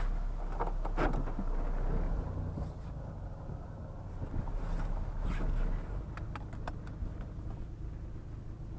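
Vehicle engine and road noise, a steady low hum with a few light clicks and knocks.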